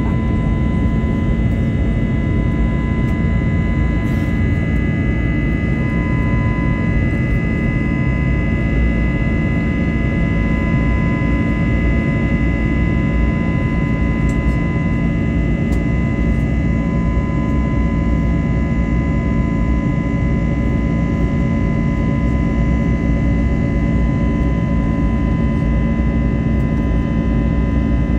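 Steady cabin noise of an Airbus A321neo: a deep engine and airflow rumble with several constant high whining tones over it, unchanging throughout.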